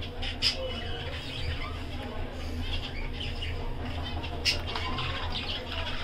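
Budgies chirping and giving short squawks, a few sharp calls scattered through.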